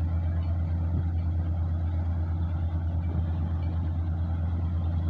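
Combine harvester's diesel engine running steadily with a deep, even hum.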